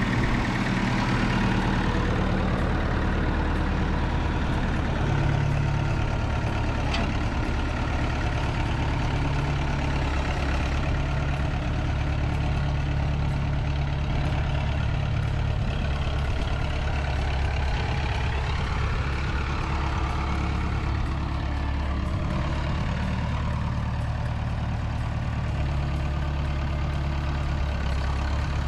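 Massey Ferguson 255 diesel tractor engine running steadily as the tractor is driven and turned, its engine speed stepping up and down a few times.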